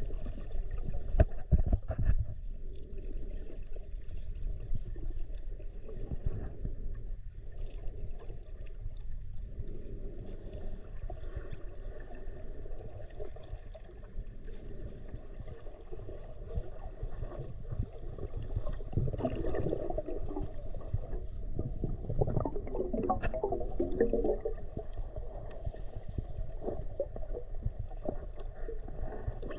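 Low, muffled rumbling with gurgling water, growing busier around twenty seconds in and again a few seconds later.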